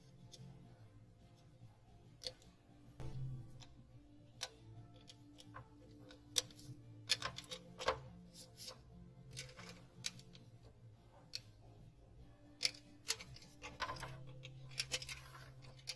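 Scattered sharp clicks and taps of an aluminium badge holder and wallet being handled, bunched about six to nine seconds in and again near the end.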